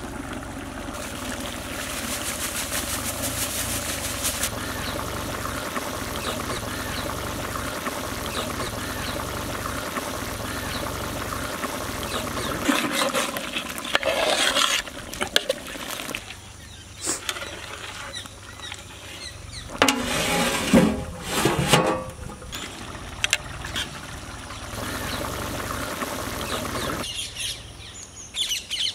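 Chicken curry cooking in a large aluminium pot, with a steady hiss through the first half, then louder irregular bursts of a ladle stirring the pot around halfway and again about twenty seconds in.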